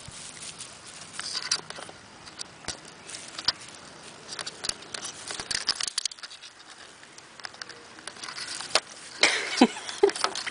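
Smooth Fox Terrier puppy scuffling and mouthing right up against the camera: a patter of small clicks and grass rustling, turning into louder handling noise near the end.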